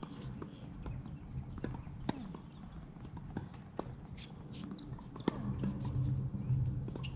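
Tennis ball knocks during a rally on a hard court: a few sharp, irregular cracks of racket strikes and ball bounces, the loudest about five seconds in. A low steady hum sets in near the end.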